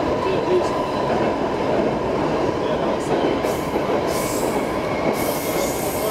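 Stockholm Metro C6 subway car running on the track: a steady, dense rumble of wheels and car body. A high hiss comes in about three seconds in, and from about five seconds in a thin high wheel squeal sounds over it.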